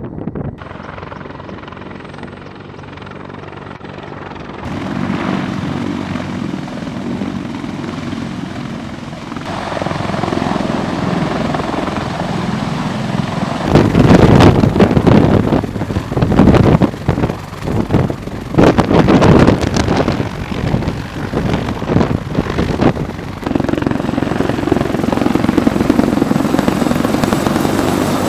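CH-53E Super Stallion heavy-lift helicopter, its rotors and turbine engines running, heard over several cuts. First it is in flight. From about halfway, with the helicopter running on the snow, loud gusting rotor wash buffets the microphone.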